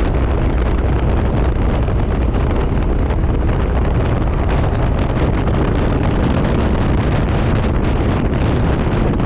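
Steady wind noise buffeting the microphone: a loud, even rumble with no distinct tones or breaks.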